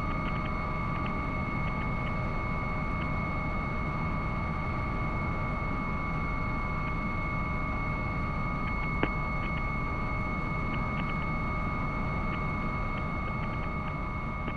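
Helicopter cockpit noise in level cruise: a steady low rumble with a steady high whine over it. A single sharp click comes about nine seconds in, and the noise fades out near the end.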